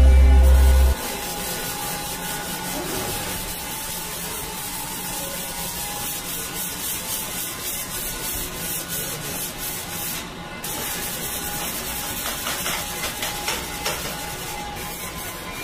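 Dry rubbing and scraping of gloved hands and a small hand tool across a stamped sheet-metal car body panel, over steady factory background noise. Loud music cuts off about a second in.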